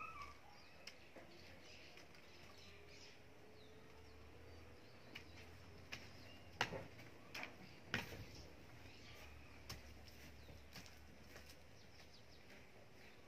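A long-handled garden hoe chopping into soil: a handful of sharp, irregular knocks, clustered around the middle. Birds chirp faintly in the background.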